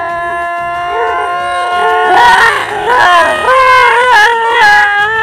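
A voice sings or wails one long held note, then wavers and slides up and down through several notes, loud, as a dramatic vocal laid over the replay.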